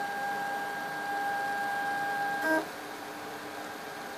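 RepRap 3D printer's stepper motors whining with one steady high tone as the print head traces the wall at constant speed. About two and a half seconds in there is a brief jumble of shifting tones, as at a change of direction, and then the whine stops, leaving a faint steady hum.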